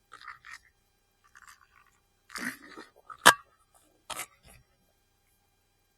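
Small handling noises while a man takes a drink of water, with one sharp click a little past halfway.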